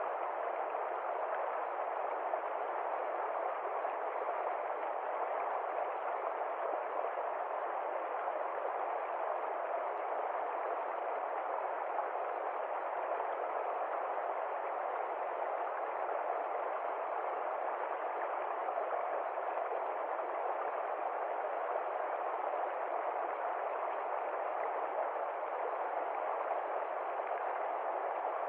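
Waterfall's rushing water: a steady, even hiss that does not change.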